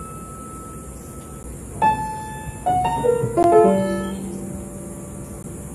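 Upright piano keys pressed by a kitten walking across the keyboard: random, unrelated notes, one about two seconds in and a quick cluster of several more about a second later, each ringing on and fading.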